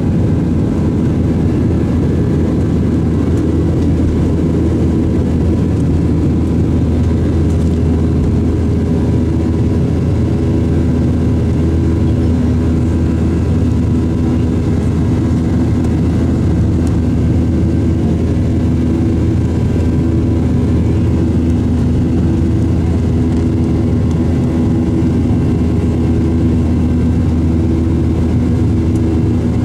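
Boeing 737-700's CFM56-7B turbofan engines at takeoff thrust, heard from inside the cabin: a steady, loud low drone with a few steady humming tones, running unchanged through liftoff and the initial climb.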